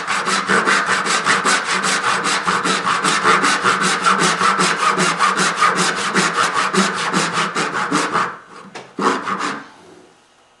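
Hand saw cutting dovetails in curly maple, in rapid, even back-and-forth strokes. The sawing stops about eight seconds in after a few last strokes.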